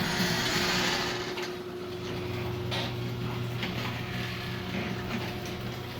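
Two garage door openers running at once, their motors humming steadily as the doors travel open, with a rattling hiss from the door hardware strongest in the first second or so.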